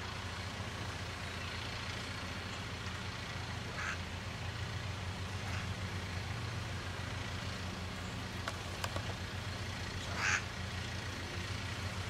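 Blue-crowned conures giving short calls: one about four seconds in, another a second and a half later, and the loudest about ten seconds in, over a steady low rumble of traffic.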